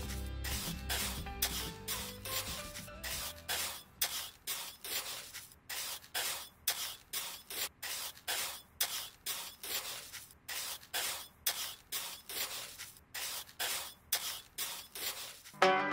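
A small trowel scraping and smoothing wet cement in quick, regular strokes, about two or three a second. Background music plays under it for the first few seconds, then drops away, and comes back louder just before the end.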